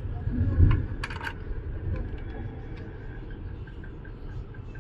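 Metallic clinks and light scrapes of brake pads and fittings being worked into a motorcycle's front disc-brake caliper by hand, with one bright ringing clink about a second in and a dull handling bump just before it.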